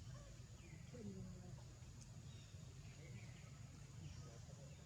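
Faint background animal calls: a few short high chirps falling in pitch and one lower falling call, over a low steady hum.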